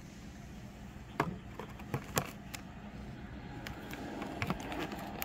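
A few light clicks and taps with faint rustling: hands searching through a diecast model airliner's box and packaging for its missing nose gear. The sharpest clicks come about a second and two seconds in.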